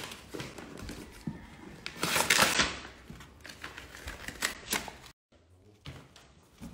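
Gift wrapping paper tearing and crinkling as it is pulled off a cardboard box, with the loudest burst of tearing about two seconds in.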